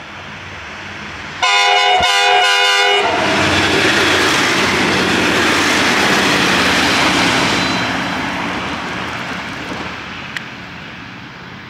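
V/Line Sprinter diesel railcar sounding its multi-tone horn for about a second and a half, broken by two brief gaps, then passing close with a loud rush of engine and wheel noise that slowly fades away.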